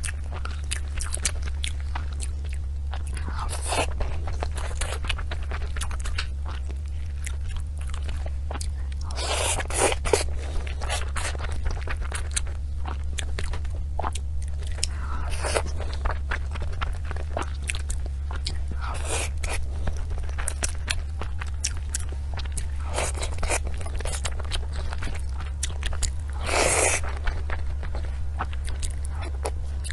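Close-miked eating of desserts: crunching bites and chewing, with many small wet clicks and a louder crunch every few seconds.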